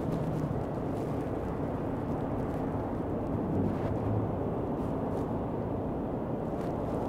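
Road traffic at a busy intersection: cars driving past over a steady low engine rumble.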